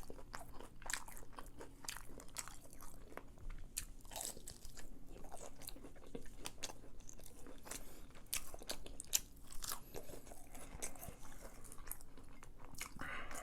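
Close-miked chewing and biting of crispy fried chicken tenders, with many irregular crunches of the breading.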